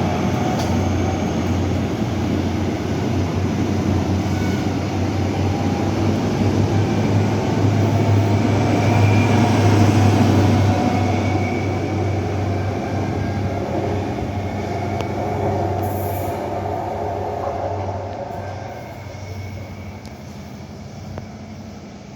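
Diesel train running through the station with a steady low engine note. It is loudest about halfway through, then fades steadily as it moves away.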